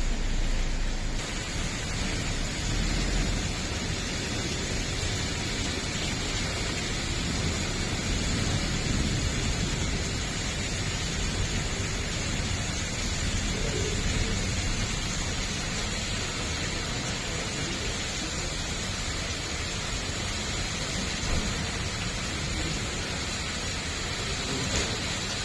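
Hail and rain falling steadily, making a dense, even noise without a break.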